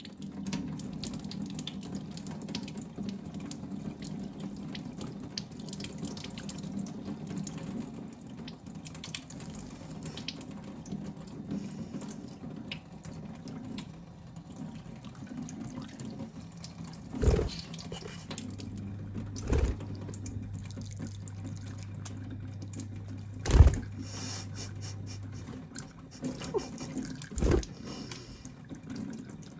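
Tap water running steadily into a sink, with four sharp knocks in the second half, the loudest about two-thirds of the way through, and a low hum for several seconds in the middle.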